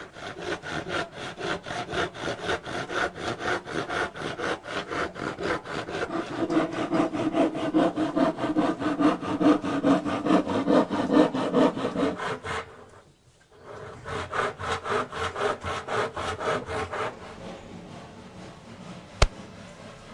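Hand saw cutting through the wooden sides of a box to separate the lid, in quick back-and-forth strokes about four a second. The strokes pause briefly about two-thirds through, resume, then grow fainter, with one sharp click near the end.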